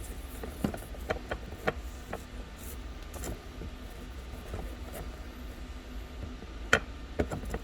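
Rag soaked in alcohol rubbing over an iPhone 11 frame to clean off glass and glue, with scattered small clicks and taps and one sharper click near the end. A steady low hum sits underneath.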